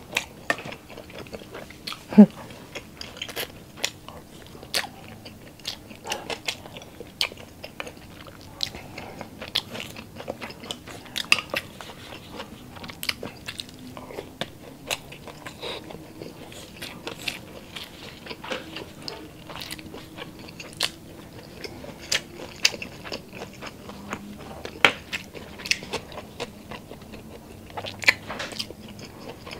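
Close-miked chewing and biting of grilled meat skewers and rice, with many irregular wet mouth clicks and crunches, a few each second. The loudest click comes about two seconds in.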